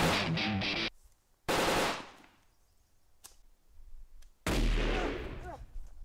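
Background music cuts off about a second in, followed by gunfire sound effects: a sudden burst of shots about a second and a half in, then a louder burst with a long fading echo about four and a half seconds in.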